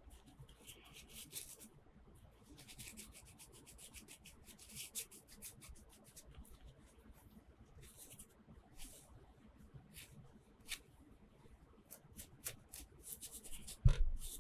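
Hands rubbing and rustling toy packaging and small plastic toy parts: a run of short crinkly scrapes and light clicks, with one heavier thump near the end.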